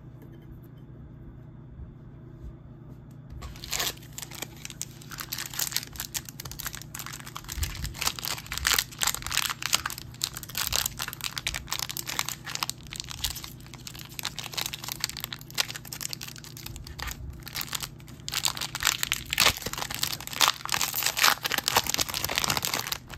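Foil trading-card pack wrapper crinkling as it is handled and torn open, a dense run of crackles starting about four seconds in.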